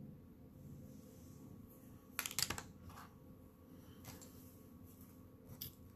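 A few small clicks and rattles as makeup items are handled: a short cluster about two seconds in, then single light clicks later.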